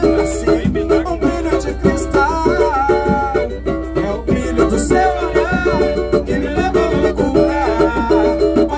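Live acoustic samba (pagode): a cavaquinho strumming with hand drum and a metal shaker keeping a fast, even rhythm, and a melody line running over it.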